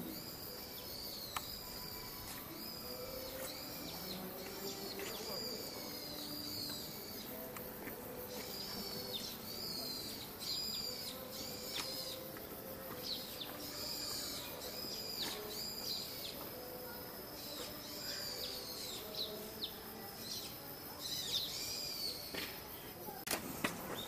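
Small birds chirping over and over in short, high, arched notes, with a faint murmur lower down.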